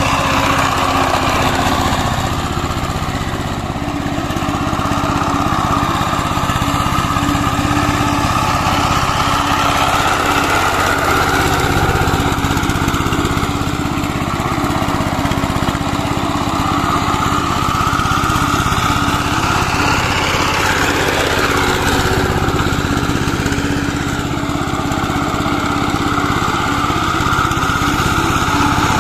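Diesel engine of a Syfeng 25 two-wheel power tiller running steadily under load as its rotary blades churn through wet paddy mud. The engine note swells and eases every few seconds as the load changes.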